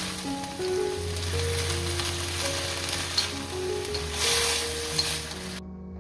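Seaweed stems sizzling in an oiled wok as they are stir-fried with a wooden spatula, over soft background music. The sizzle cuts off suddenly near the end.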